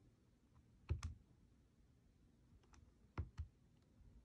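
Keys of a TI-84 Plus graphing calculator being pressed: a few soft clicks, one about a second in and a quick pair a little after three seconds.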